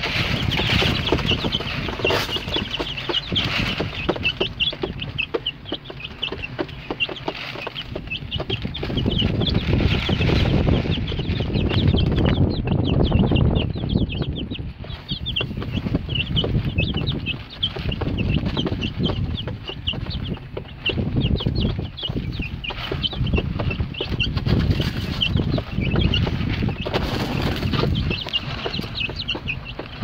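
A flock of young broiler chicks peeping constantly, many short high calls overlapping, over a low rumble that rises and falls.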